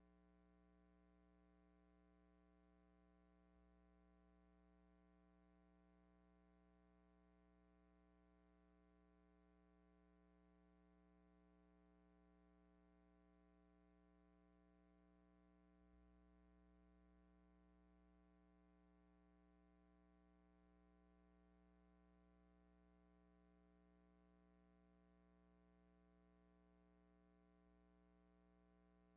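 Near silence: no soundtrack, only a very faint steady hum.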